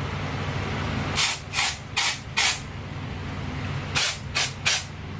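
Aerosol dry shampoo sprayed in short hissing bursts: four quick sprays about a second in, then three more near the end.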